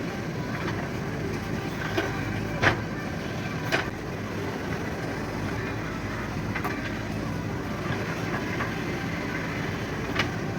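A JCB backhoe loader's diesel engine running steadily, with a few sharp metal clanks, the loudest about two and a half seconds in, from the machine's working parts.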